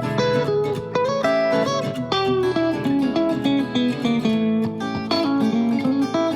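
Background music: plucked acoustic guitar playing a quick run of picked notes over a steady low note.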